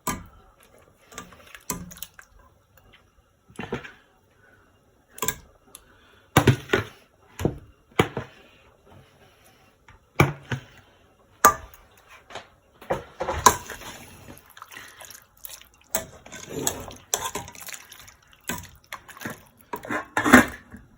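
Pieces of fish being dropped one by one into a pot of curry liquid with vegetables: irregular short wet splashes and clicks, some quite sharp.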